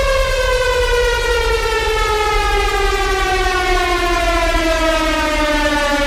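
A falling sound effect: a long whistling tone rich in overtones, sliding slowly and steadily down in pitch, over a low rumble.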